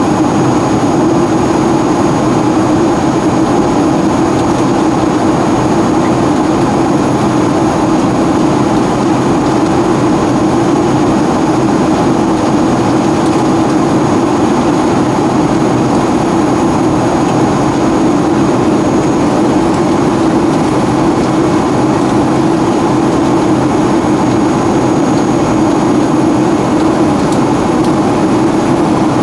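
Steady in-flight cabin noise of a Boeing 757-200: an unchanging rush of jet engine and airflow noise heard from inside the cabin, with faint high steady tones above it.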